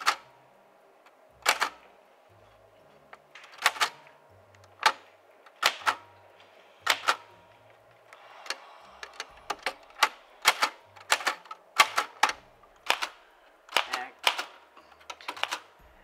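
Manual portable typewriter being typed on, each key striking with a sharp clack. The keystrokes come slowly at first, about one a second, then turn quicker and more uneven over the second half.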